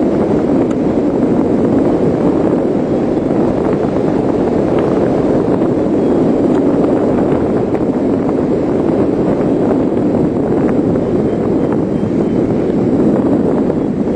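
Steady, loud wind rushing over the microphone during a paraglider flight.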